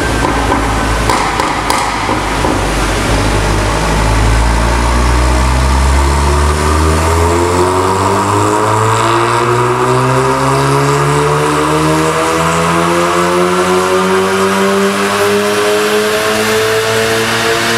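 APR Stage 2 VW Golf R Mk7's turbocharged 2.0-litre four-cylinder, breathing through a non-resonated Milltek turbo-back exhaust on a rolling-road dyno. It runs low and fairly steady for about six seconds, then climbs smoothly and steadily in revs in one long pull under load, lifting off right at the end.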